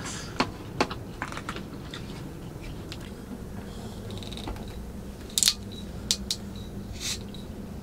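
Scattered light clicks and knocks as a glass bottle and a shot glass are handled on a table, a few sharper ones in the second half, over a low steady hum.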